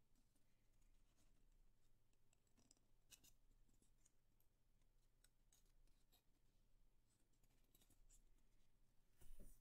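Faint rustling and crinkling of a sheet of paper being folded and creased by hand into a paper airplane, with a soft thump near the end.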